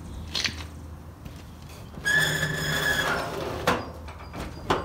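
Vintage VW Beetle's front hood being lowered and pressed down onto a new rubber hood seal, with a sharp clunk a little before four seconds in and another near the end, as the hood fails to latch over the thicker seal. About two seconds in, a high steady squeak-like tone lasts about a second.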